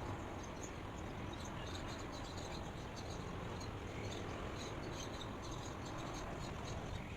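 Steady ambient hiss with many faint, short, high chirps scattered irregularly through it.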